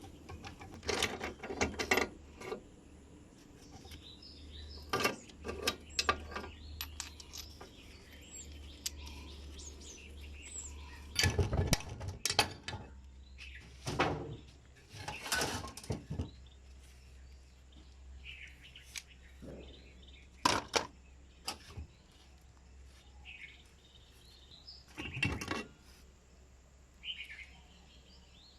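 Scattered metallic clinks and knocks of tools and metal parts being handled, with birds chirping in the background and a low steady hum.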